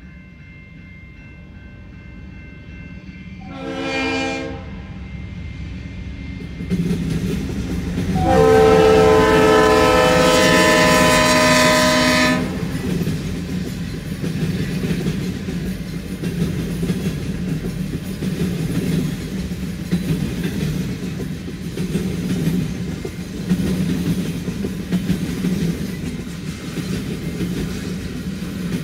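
Canadian National diesel freight train sounding its horn, a short blast and then a long loud blast of about four seconds, as the locomotives pass. The freight cars then roll by in a steady, uneven rumble of wheels on rail.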